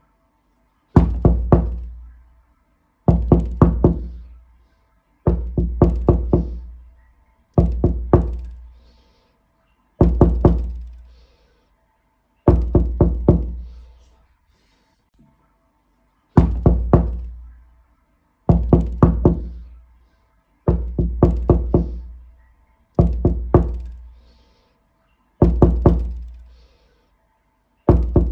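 Knocking on a door in repeated sets of three or four quick raps. A new set comes about every two seconds, about a dozen in all, with a longer pause about halfway through.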